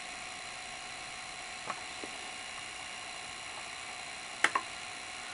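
Sony SL-2300 Betamax VCR's tape transport running with a steady mechanical whine. Two small clicks come about two seconds in, and a sharper double click about four and a half seconds in.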